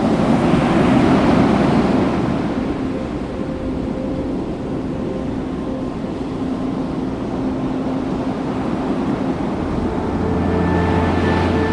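Ocean surf on a beach, a steady wash of noise that swells at the start and again near the end. Faint held notes of background music sit underneath, and a new lower note enters near the end.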